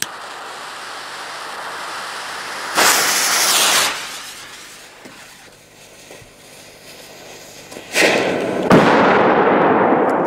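A Polish firecracker's green fuse hisses after lighting, with a louder sputtering rush for about a second around three seconds in. Near the end the firecracker goes off with a loud report and a sharper crack a moment later, followed by a long rolling echo that slowly fades.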